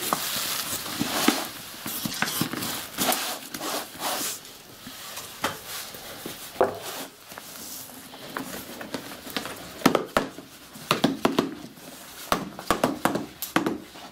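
Hands rustle and handle paper while packing wrapped charge bags into a paper firework-shell casing. A denser run of sharp knocks and taps comes in the last few seconds.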